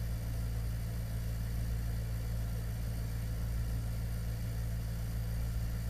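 Steady low hum with a faint hiss underneath, unchanging throughout.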